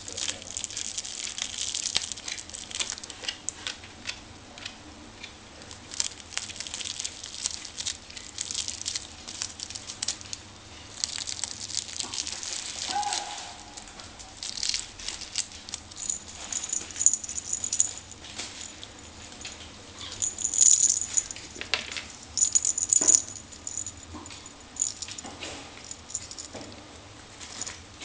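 Kittens playing with a rattling toy: irregular rattling and clicking throughout, with a thin high ringing tone coming and going from about halfway through.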